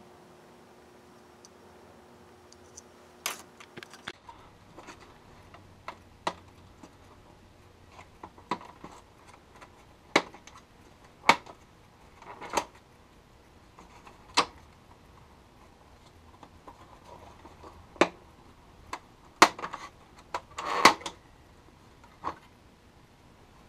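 Sharp plastic clicks and snaps, one every second or two, as the plastic retaining tabs on the back of a 2004 Chevrolet Silverado 2500HD instrument cluster are pried up and its back cover is worked loose.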